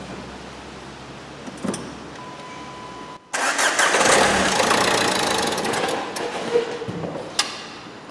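Renault Megane 3's 1.5 dCi four-cylinder diesel engine turned over and starting about three seconds in, running loudly for a few seconds and then dying away. It starts and cuts out because air is still in the fuel line after the fuel filter change, before the diesel has been bled through to the pump.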